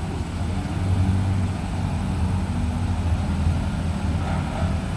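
A CC 204 diesel-electric locomotive approaching under power, its diesel engine working hard with a steady low drone that gets louder about a second in.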